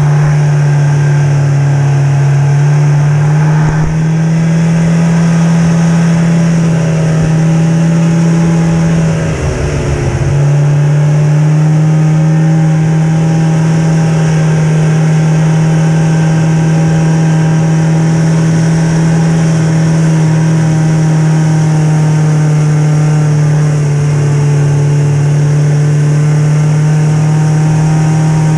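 Snowmobile engine running steadily at trail speed, heard from the sled itself. About nine seconds in its pitch and level dip briefly, then pick back up to the same steady note.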